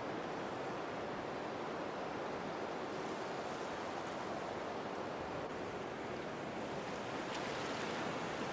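A steady, even rushing noise, like surf or running water, with a couple of faint ticks near the end.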